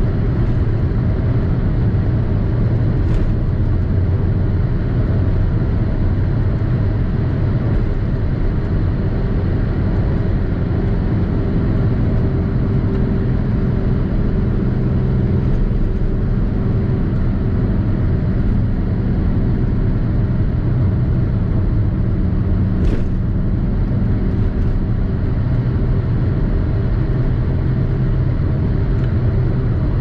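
Pontiac Fiero's swapped supercharged 3800 V6 (L67) driving at a steady pace: a continuous low engine and road drone that holds an even level, with no revving. Two brief clicks stand out, one a few seconds in and one about three-quarters through.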